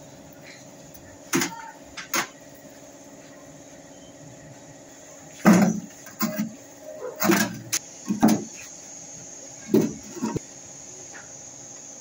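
Hollow concrete blocks being set down into a metal wheelbarrow and onto one another: a string of dull clunks and scrapes, two about a second apart near the start, then a quicker run of louder ones through the second half.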